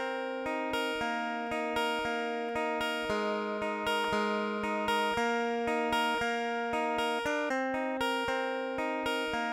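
Background instrumental music: plucked notes over held chords, on a steady pulse of about two beats a second.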